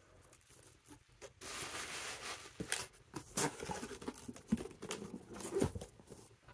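A small cardboard box being handled: after a quiet second, a spell of scraping rustle, then a run of light knocks and taps as the box is moved and lifted.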